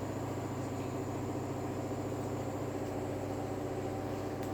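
Steady low mechanical hum, even throughout, with one faint click near the end.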